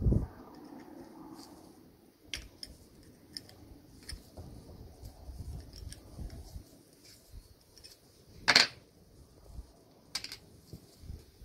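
Workshop handling sounds: scattered light clicks and knocks of small parts and tools, with one louder, brief clatter about eight and a half seconds in and a smaller one about ten seconds in.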